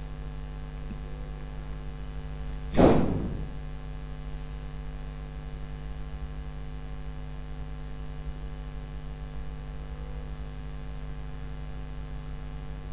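Steady electrical mains hum, with one sudden loud knock about three seconds in that dies away within a second.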